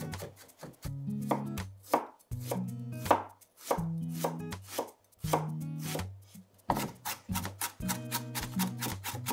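Kitchen knife chopping food on a cutting board, a run of sharp irregular strokes that come faster, about four a second, in the last couple of seconds. Soft background music plays underneath.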